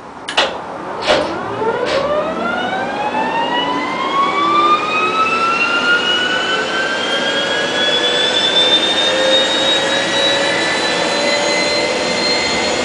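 Solar Saturn gas turbine of a 750 kW generator set starting: a few sharp clicks in the first two seconds, then a whine that rises steadily in pitch as the turbine spools up, growing louder and levelling off near the end.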